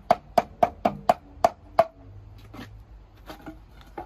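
Hammer blows on a wooden jack stud, knocking it loose from a nailed wood window frame: about seven quick sharp strikes in the first two seconds, then a few lighter knocks.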